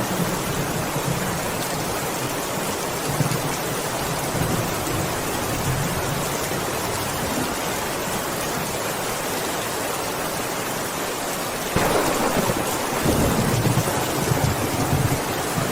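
Heavy rain falling in a steady downpour, with a low rumble under it, turning suddenly louder about twelve seconds in.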